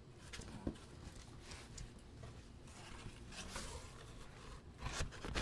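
Cardboard shipping box being handled and its flaps pulled open: scattered rustles, scrapes and light knocks of cardboard.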